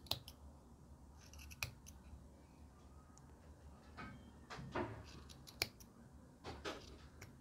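Scissors snipping through the wrapped loops of wool yarn to open a pompom: several faint, separate snips at irregular intervals.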